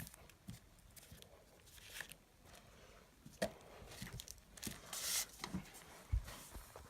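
Fireworks packaging being handled: scattered light clicks and knocks, with a short rustle of packaging about five seconds in.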